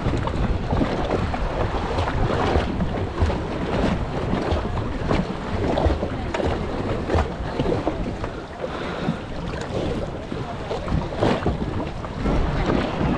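Sea-Doo jet ski underway: engine running beneath heavy wind buffeting on the microphone, with water splashing against the hull.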